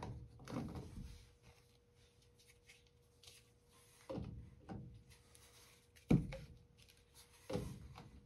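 PVC pipe fittings being pushed together and handled during a dry fit: about six separate plastic knocks and clicks, the loudest about six seconds in, over a faint steady hum.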